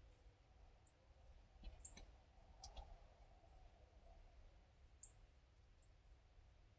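Near silence: quiet woods with a few faint, short, high chirps and two soft clicks, about two and three seconds in.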